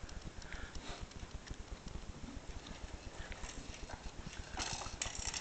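Baby bouncing in a hanging baby bouncer, her feet pushing off bare wooden floorboards in a quick, irregular run of light taps, a little louder near the end.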